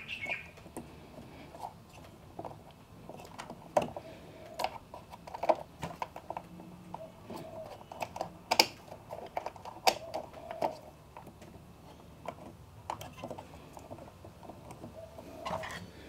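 Scattered small clicks and light plastic knocks, with a few sharper clicks, as wiring connectors are pushed back into place and the wires tucked into the base of an Electrolux heat-pump condenser dryer.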